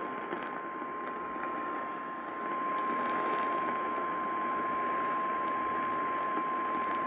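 Emergency Alert System attention tone, a single steady tone just above 1,000 Hz, the National Weather Service's 1050 Hz alert tone, heard over AM radio with a steady hiss of static and a few crackles. It signals that a tornado warning is about to be read.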